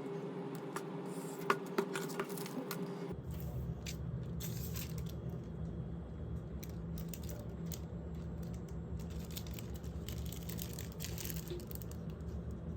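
Scattered light clicks and short rustles from the plastic and film parts of a rubber-band ornithopter being handled and fitted together, over a steady low hum, with two sharper clicks about a second and a half in.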